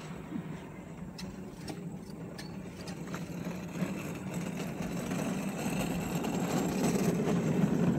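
Chairlift running: a steady mechanical hum and rumble from the moving haul rope and its wheels, growing louder toward the end, with a few sharp clicks in the first few seconds.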